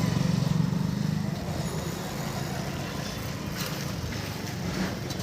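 Express passenger train passing, a low rhythmic rumble that eases off over the first couple of seconds and then runs on steadily.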